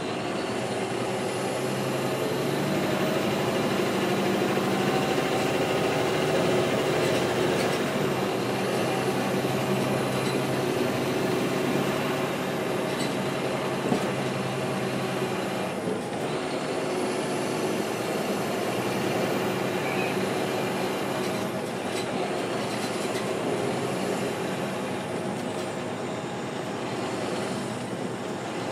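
NABI 416.15 transit bus under way, its Caterpillar C-13 inline-six diesel and ZF Ecomat six-speed automatic running steadily with road noise; the lower engine tones fade about halfway through.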